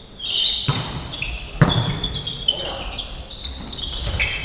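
Volleyball rally in a sports hall: the ball is struck twice, about a second apart, amid short high squeaks of shoes on the hall floor, with the hall's echo.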